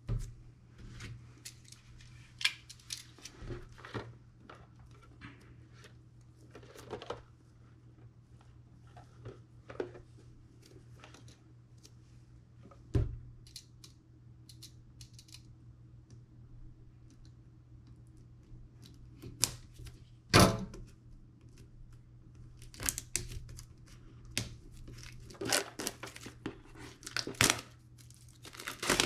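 Packaging of a smartwatch box being opened by hand: plastic wrap or seals tearing and crinkling, with scattered rustles, clicks and knocks of the box being handled, the sharpest knock about twenty seconds in.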